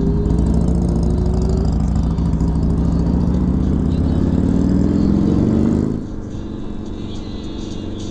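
Motorcycle engine accelerating, its note rising steadily in pitch. About six seconds in, the sound drops off suddenly to a quieter, steady running noise.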